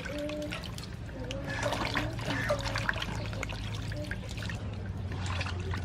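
Water trickling and splashing irregularly as bitter gourd is rinsed and washed by hand.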